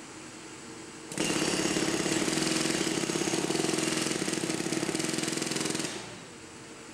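Pneumatic jackhammer, run off a tow-behind Ingersoll Rand air compressor, breaking up a concrete curb. It hammers in one continuous run of rapid blows that starts about a second in and stops near the end, over the steady hum of the compressor's engine.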